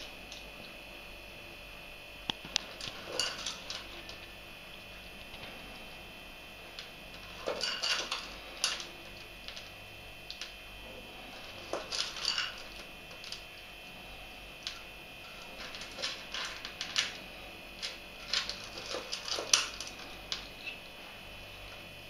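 Abyssinian cat crunching dry kibble, with pieces clicking against its ceramic bowl. The crunches and clicks come in short bursts every few seconds, with quieter pauses between them.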